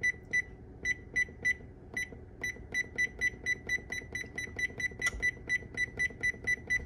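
Electric oven control panel beeping at each press of the up-arrow key as the timer is counted up minute by minute: short, identical high beeps about three a second, with a couple of brief pauses near the start.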